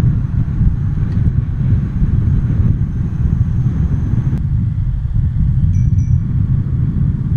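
Wind buffeting the microphone of a camera on a moving bicycle: a loud, steady low rumble, with an abrupt change in its texture about four and a half seconds in.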